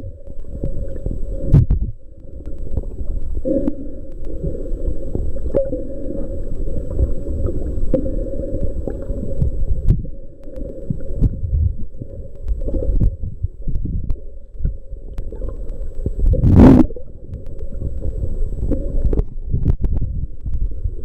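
Muffled underwater rumbling and gurgling of water moving around a submerged camera, dull and low with the highs cut off. There are a few faint clicks and one short, louder noise about two-thirds of the way through.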